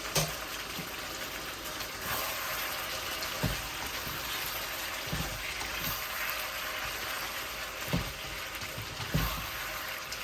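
Quail stir-fry in its sauce sizzling and bubbling steadily in the pan, with a few low knocks.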